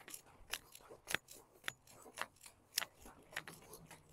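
Soaked battle ropes slapping the wet driveway in a steady rhythm, about two sharp slaps a second.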